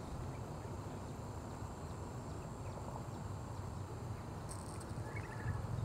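Quiet outdoor background: a steady low hum with a faint high steady drone, and a brief high chirp followed by a few faint short calls near the end.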